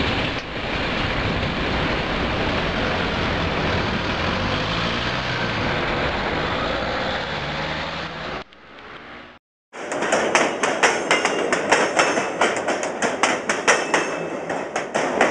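Intercity train running past over a level crossing, a steady loud rumble and rush. After a brief break about two-thirds of the way in, a quick irregular run of sharp clacks and knocks follows: train wheels going over rail joints.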